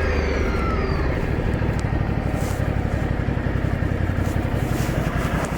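Ducati Scrambler Sixty2's air-cooled L-twin engine dropping back from a rev in the first second and then idling with an even pulsing beat; it is the running noise the owner calls strange.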